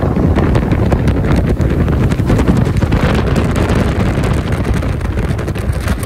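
Heavy wind buffeting the microphone over the rush of water and the running of the boat's 115 hp outboard motor as the motorboat travels at speed.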